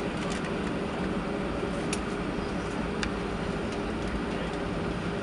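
Airbus A320 cabin noise during taxi: the jet engines' steady hum and rush of air at low power, with a few faint steady tones. A couple of light clicks come about two and three seconds in.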